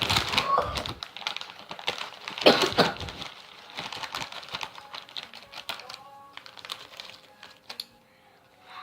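Crunchy Cheetos being chewed close to the microphone: a rapid run of crisp crunching clicks, with two louder noisy bursts in the first three seconds.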